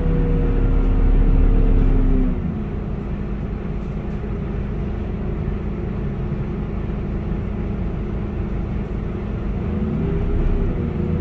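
Scania K230UB bus's five-cylinder diesel engine heard from inside the cabin: its note falls away about two seconds in and drops to a lower rumble, then rises again near the end as the engine picks up.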